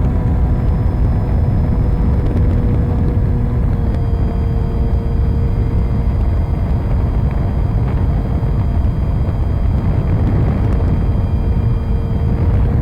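Onboard sound of a 3D-printed RC plane in flight: a steady motor-and-propeller whine over heavy wind rush on the camera's microphone. The whine's pitch shifts slightly about four seconds in.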